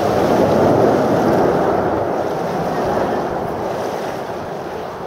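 Jet noise from a formation of Aermacchi MB-339 jets, each with a single turbojet, flying overhead: a steady rushing sound that peaks about a second in and then slowly fades.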